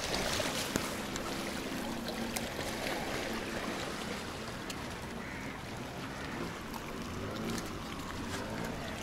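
Steady seaside ambience: small waves lapping and washing against the rocks along the seawall, with a faint low drone in the first half.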